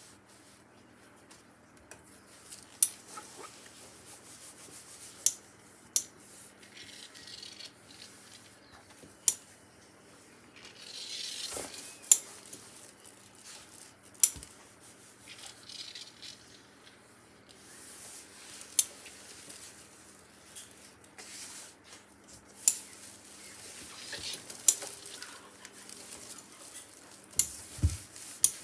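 A steam iron sliding over satin fabric while hands smooth and pat it flat, a low rubbing rustle with sharp clicks every few seconds and a brief hiss about eleven seconds in.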